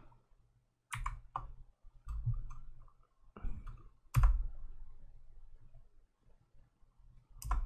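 A few separate computer keyboard keystrokes: sharp clicks about a second in, another just after, one near the four-second mark, and one near the end.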